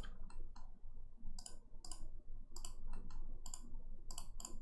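Computer mouse buttons clicking repeatedly, many of the clicks in quick pairs.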